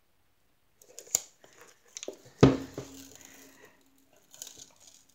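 Protective cover sheet being peeled back from a diamond-painting tissue box cover: paper-and-plastic crinkling and rustling, with a click about a second in and a louder knock of the box being handled about halfway through.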